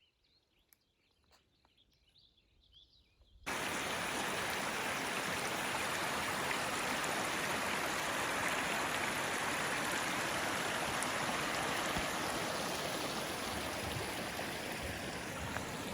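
Near silence with a few faint ticks. About three and a half seconds in, it cuts suddenly to the steady rush of a stream flowing out of a mountain lake.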